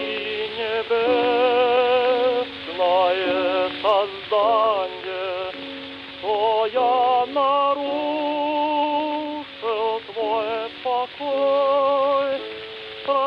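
Operatic singing: a single voice holding long notes with wide vibrato in phrases of a second or two, over a sustained accompaniment.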